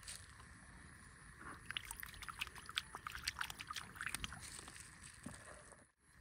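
Faint steady insect drone, with a flurry of short, sharp clicks and chirps for about three seconds in the middle.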